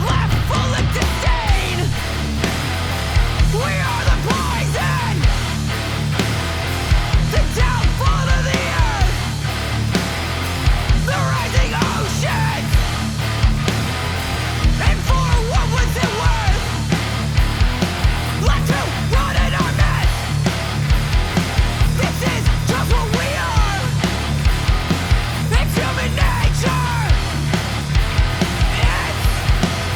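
Loud rock music, a full band with a steady, driving drum beat throughout.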